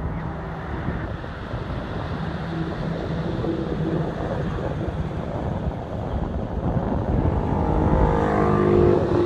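Low steady rumble of outdoor background noise, with a motor vehicle's engine growing louder near the end, its pitch shifting as it passes.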